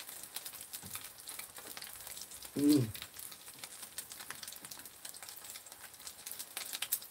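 Kimchi pancake sizzling in a frying pan on a portable gas burner, a steady fine crackle. A short voice sound comes about two and a half seconds in.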